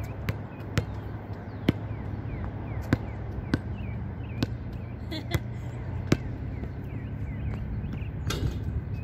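A basketball bouncing on a hard outdoor court, dribbled in sharp single bounces about once a second, eight in all, stopping about six seconds in.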